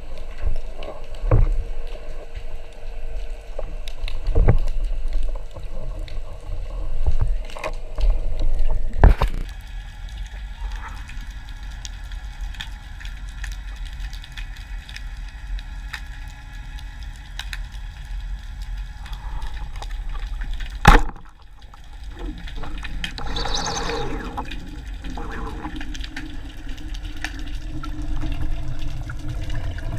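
Underwater sound of a freediver: a low steady rush of water with scattered knocks and clicks, and one sharp crack about two-thirds of the way through, the loudest sound, as a speargun fires.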